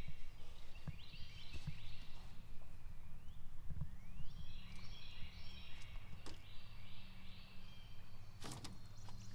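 Several birds singing, with many short repeated chirps, over a steady low hum. A few sharp knocks come near the end.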